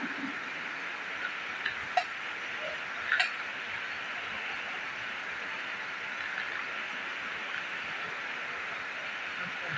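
Steady background hiss in a large hall, with a few sharp clicks, the loudest about two and three seconds in.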